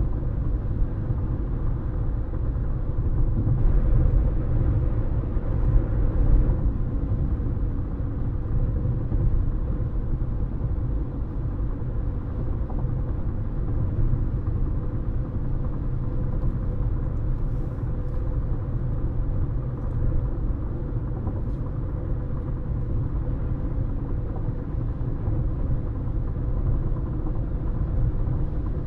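A car driving at steady road speed, heard from inside: a continuous low rumble of tyres and engine with a faint steady hum.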